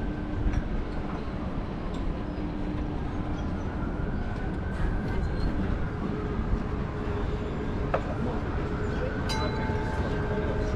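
Steady low rumble of busy outdoor city ambience, with a few faint held tones and occasional light clicks.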